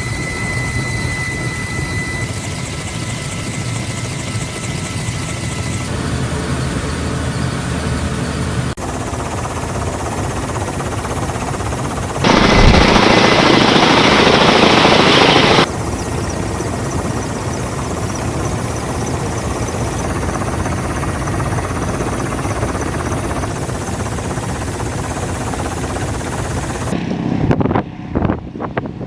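Steady machinery and rotor-like engine noise that changes abruptly several times between shots. About twelve seconds in comes a loud rushing roar lasting about three seconds.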